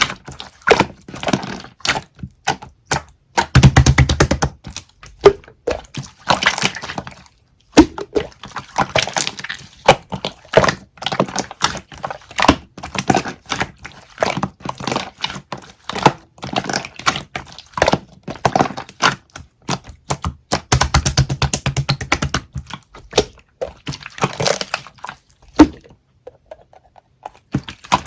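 Dense, sharp crackling clicks and pops from something handled close to the microphone. They come in bursts separated by short pauses, with a brief low rumble about 4 s in and again about 21 s in.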